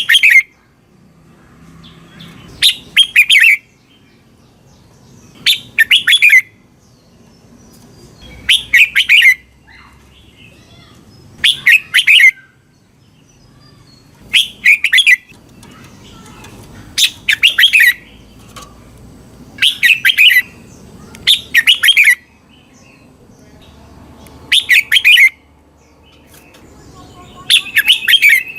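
Red-whiskered bulbul singing short, loud, chirping song phrases, about ten of them, one roughly every three seconds.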